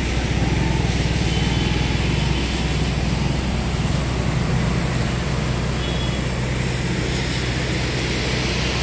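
Steady motor vehicle noise: an even engine hum with road noise, heard from a vehicle driving through the streets.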